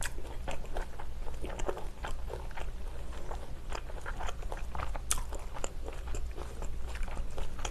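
Close-miked, wet chewing of a mouthful of spicy stir-fried pork with wide, chewy Chinese glass noodles: many quick, irregular mouth clicks and smacks.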